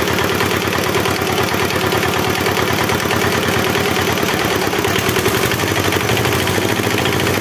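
A nasimon's single-cylinder diesel engine idling with a steady, rapid chug.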